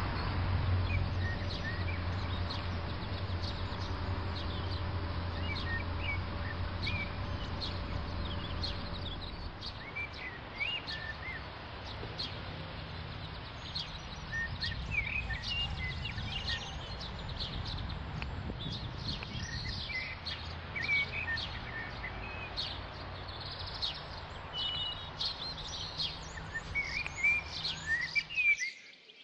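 Birds chirping and singing, many short high calls throughout, over a steady outdoor background noise. A low steady hum fades out about nine seconds in, and the background cuts off suddenly near the end.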